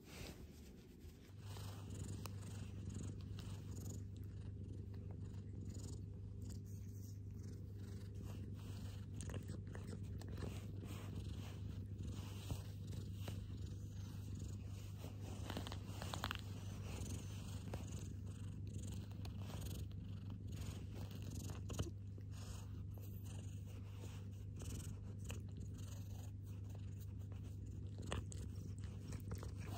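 Domestic cat purring close up while being petted by hand, a steady low purr that starts about a second and a half in and carries on evenly.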